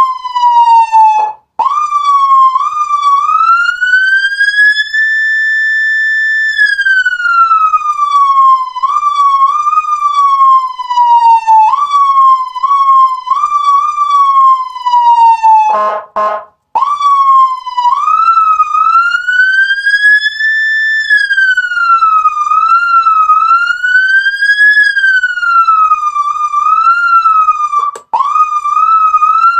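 Whelen Alpha 12 electronic siren worked by hand in manual mode. Its pitch climbs while the switch is held, stays at the top for a moment, then glides slowly back down, again and again, with small quick jabs up and down along the way. About halfway through, the low buzzy horn tone sounds for about a second, then the siren climbs again.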